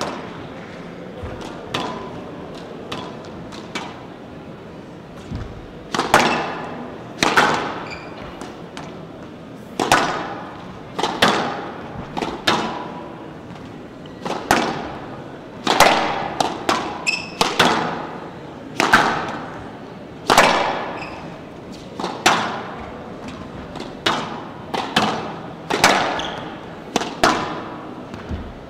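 Squash ball struck by racquets and hitting the walls of a glass court, sharp thwacks coming irregularly about once a second, each ringing on in the echo of a large hall.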